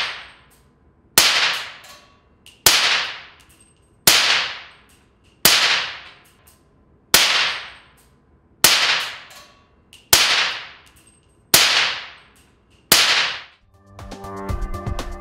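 Rifle fired through an SWR Specwar 762 suppressor: nine suppressed shots at a steady pace of about one every second and a half, each a sharp crack that dies away over about a second.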